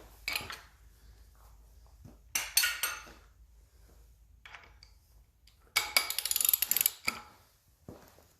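Hand socket ratchet clicking in short bursts with metallic tool clinks, turning the engine over by hand; the longest, fastest run of clicks is about six seconds in.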